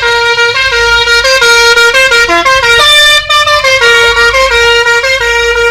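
Telolet musical air horn on a Hino truck playing a quick melody of short stepped notes, with a brief break about three seconds in.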